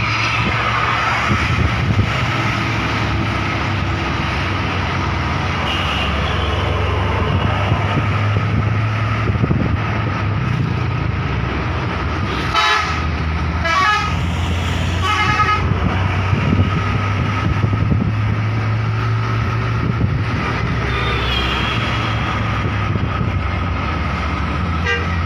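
Steady drone of tour coach and motorcycle engines with road and wind noise, and a bus horn sounding in two short warbling bursts about halfway through.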